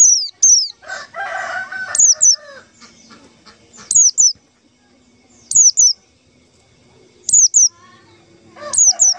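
White-eye (pleci) call: a pair of thin, high notes, each sliding quickly downward, repeated six times at about two-second intervals. A rooster crows once, about a second in.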